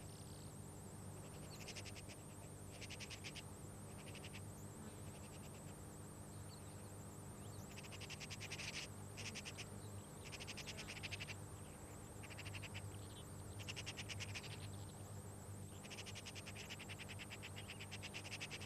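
Bursts of rapid, buzzing rattles, each about a second long and repeating every second or two, over a steady low hum.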